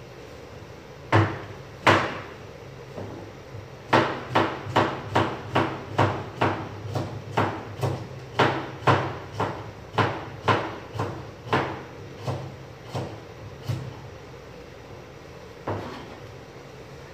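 Knife slicing a cucumber on a cutting board, each stroke a sharp knock of the blade on the board. Two knocks, a pause, then a steady run of about two a second for some ten seconds, and one last knock near the end.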